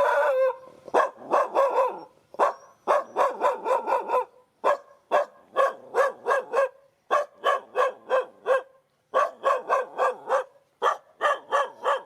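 Dog barking over and over in quick runs of short, fairly high barks, about three a second, with brief pauses between runs.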